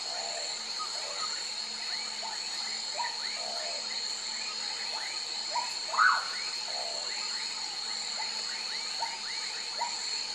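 Common pauraque giving one loud whistled call about six seconds in. It plays over a continuous swamp chorus of many short, repeated frog calls and a steady high-pitched drone.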